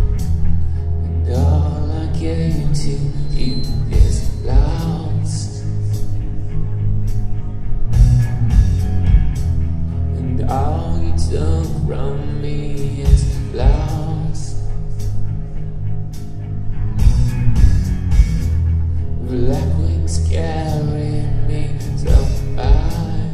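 Live rock band playing loud, with heavy bass, drums and guitars, and a sung vocal that comes in three phrases. It is an amateur recording from within the audience.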